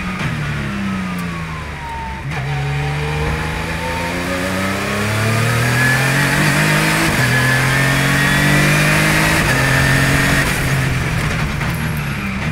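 Radical RXC's engine heard from the cockpit on track: the engine note falls under braking and downshifting, then climbs hard under acceleration with an upshift about seven seconds in, and drops again near the end as the driver lifts off.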